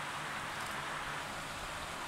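A river flowing, a steady unbroken water noise.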